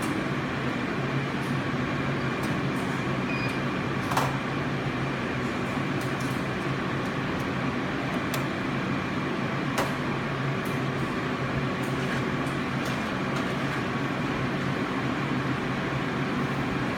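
Steady mechanical hum, with a few sharp clicks about four seconds in and again near ten seconds.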